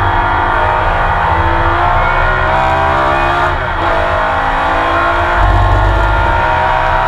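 Porsche 911 RSR's flat-six engine heard onboard, pulling hard with the revs climbing, and a gear change about halfway through where the pitch drops and then rises again.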